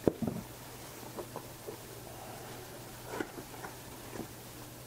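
Foam packing and a plastic bag being handled in a cardboard box: a sharp knock right at the start, then short, scattered handling noises.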